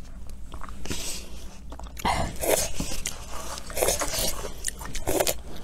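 Close-up eating sounds: slurping noodle soup from a paper cup and chewing, in four or five separate bursts.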